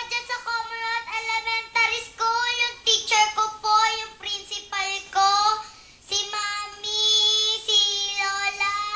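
A young girl singing alone into a microphone, with no instruments: a high, clear voice moving from note to note in short phrases, then holding one long note near the end.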